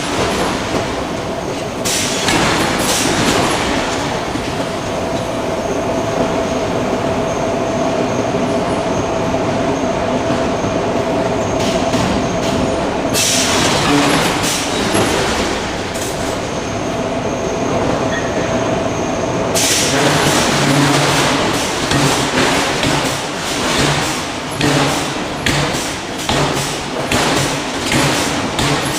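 Forge shop with a hydraulic forging hammer at work: a steady machine hum and noise, with stretches of rapid, irregular hammer knocks on the steel, most continuous over the last third.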